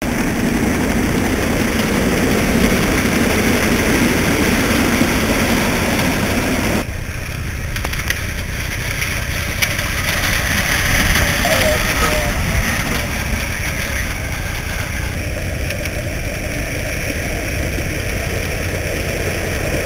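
5-inch gauge live steam model locomotive running, heard as a steady rushing, rumbling noise that drops in level abruptly about seven seconds in.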